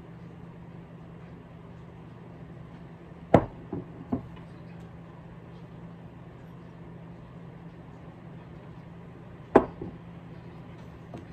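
Ceramic plate and bowl set down on a wooden table: a sharp knock about three seconds in, followed by two lighter taps, then another sharp knock near the end with a small tap after it.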